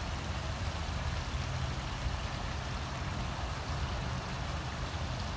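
Water spilling in thin sheets over two stone ledges into a garden pond, a steady splashing with a low rumble under it.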